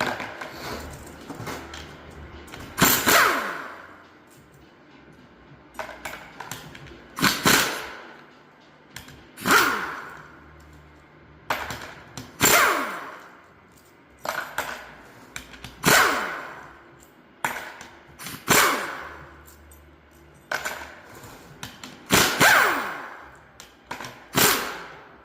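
Metal parts from a limited-slip differential being handled and set down one after another, each landing with a sharp clink and a short ringing that fades, about every two to three seconds, with lighter clinks in between.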